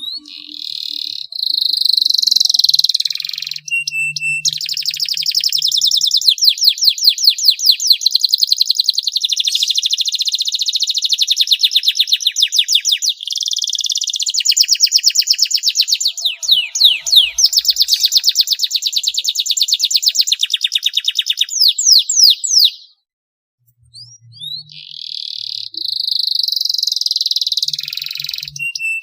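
Canary singing a long, loud song of fast rolling trills and chirps. It breaks off for about a second roughly three-quarters of the way through, then starts again.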